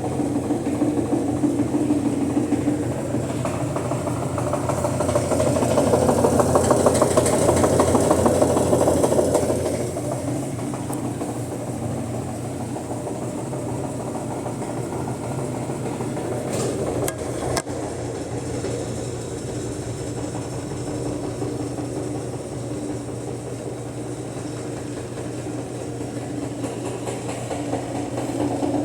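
Brastemp BWL 09 top-loading washing machine spinning, a steady motor hum under a fast rattling knock that grows louder for a few seconds near the start and then settles. The rattle comes from the tub's suspension, a sign of worn suspension rods or dampers. A single sharp click about two-thirds of the way through.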